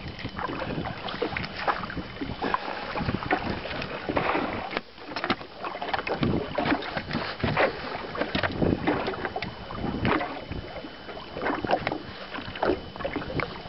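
Lake water slapping and splashing irregularly against the hull of a small fishing boat, with a run of short knocks and some wind on the microphone.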